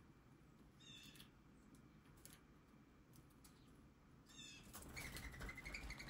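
Small birds giving short, high chittering calls, twice. Near the end comes a louder flurry of wing flaps with a whistling note, as a mourning dove takes off.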